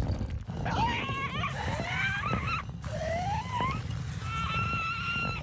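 Cartoon bird character's squawking, chattering calls, the pitch gliding up and down, ending in one long held note, over a steady low rumble.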